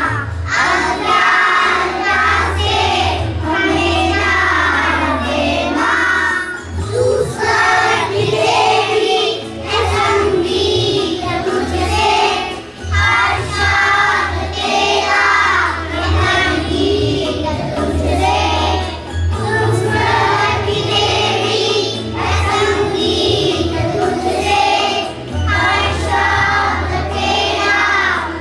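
Young children singing a prayer together as a group, the sung phrases running on continuously over a steady low hum.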